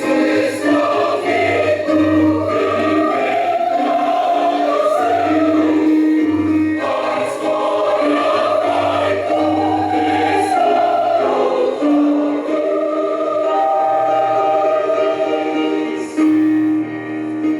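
Choir singing a Christian song.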